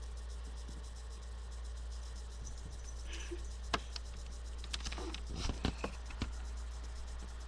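A dizzy cat's paws and claws scrabbling and tapping on a hard floor as it stumbles: a flurry of light clicks about halfway through, over a steady low hum.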